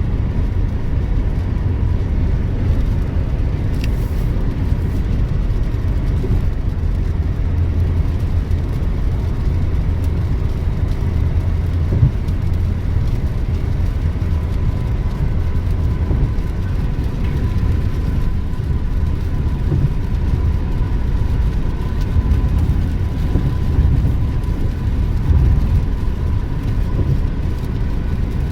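Steady road and engine noise heard from inside a moving car, a constant low rumble.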